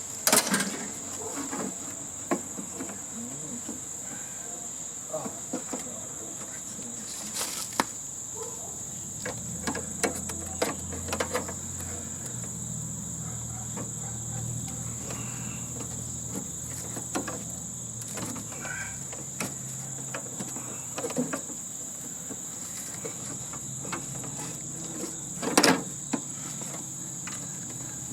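Scattered knocks, clicks and clanks of tools and metal parts being handled while an air-conditioning unit is stripped for scrap. The sharpest knocks come just after the start and near the end, over a steady high-pitched buzz.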